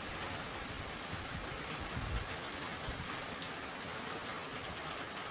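Steady rain falling in strong gusting wind, with a low rumble of wind hitting the microphone about two seconds in.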